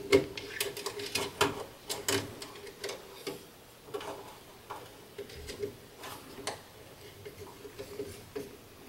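Irregular light clicks and taps of a wire being handled and routed by hand through an electrical control panel's plastic wiring duct and terminals, over a faint steady hum.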